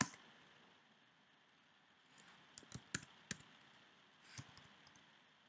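Faint computer-keyboard keystrokes: a handful of quick taps between about two and three and a half seconds in, and one more a second later.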